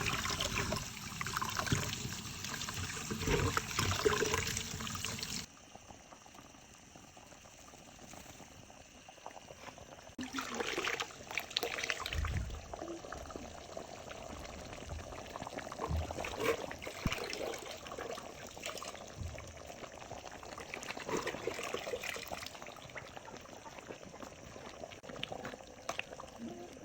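Liquid being poured and splashing, with low thumps. About five seconds in, this cuts off abruptly to quieter, intermittent liquid and handling sounds.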